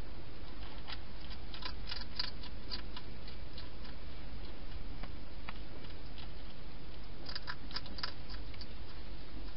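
Wild hedgehog eating, its chewing making small crisp crunching clicks in two bursts, one about a second in and another near the end, with a few single clicks between, over a steady low hiss.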